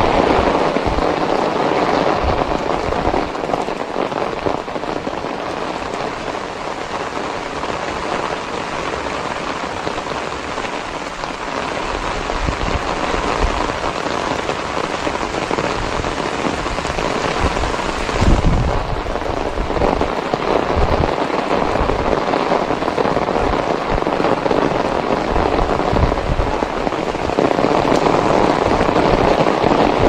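Heavy rain falling steadily on a wet road: a dense, even hiss, with irregular low rumbles and thumps underneath and a brief swell a little past the middle.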